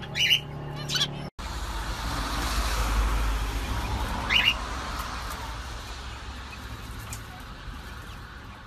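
Canaries chirping: two short chirps in the first second, then a brief dropout, after which a steady low rumble runs underneath with one more short chirp about four and a half seconds in.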